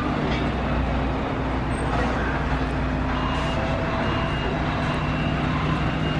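Steady city traffic noise with the low hum of a vehicle engine running nearby. From about halfway through, a short high beep repeats roughly once a second.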